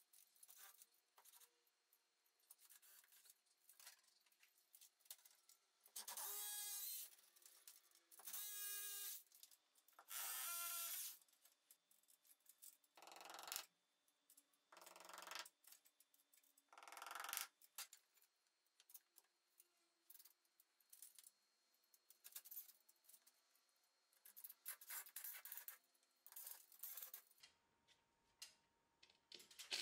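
Cordless drill running in short bursts of about a second each, six in all, followed by light clicks and taps of handling at the wall.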